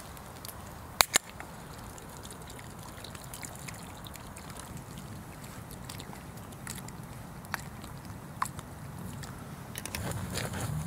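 Wood campfire crackling over a steady low hiss, with a pot of potatoes boiling. Scattered faint crackles, two sharp clicks about a second in, and the hiss grows a little louder near the end.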